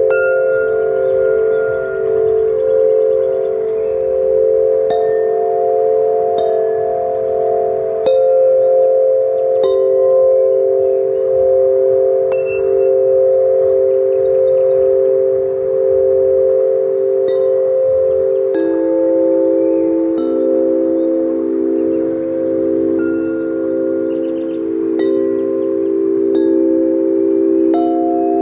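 Large handmade tubular bells ringing, their long overlapping tones pulsing against one another, with fresh strikes every second or two. Two lower bells join about two-thirds of the way through.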